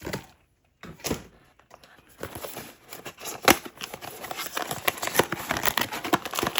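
Blind-box packaging being opened by hand: a couple of knocks, then from about two seconds in a dense, irregular crinkling and tearing of wrapping, with one sharp snap about three and a half seconds in.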